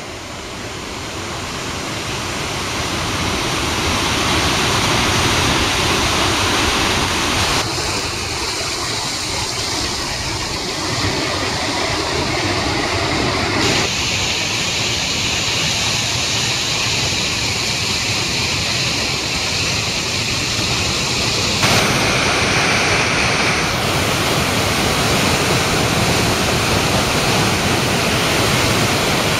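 Tännforsen waterfall, a large cascade of white water, rushing with a steady, dense noise. The sound swells up over the first few seconds, then shifts abruptly in tone a few times as the shots change.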